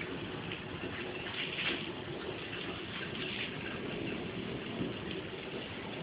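Steady hiss of water drops falling on wet leaves, with faint brief ticks now and then.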